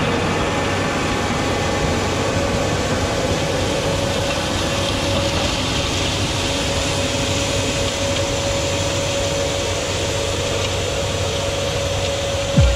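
Tractor-drawn Maschio Gaspardo power harrow and seed drill combination working through soil: a steady mechanical running noise with a constant hum held over it.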